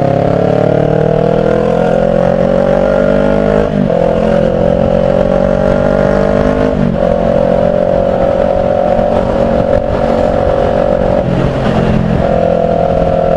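Kawasaki Ninja 400 parallel-twin engine accelerating, its pitch rising and then dropping at upshifts about 4 and 7 seconds in. It then runs at a steady speed.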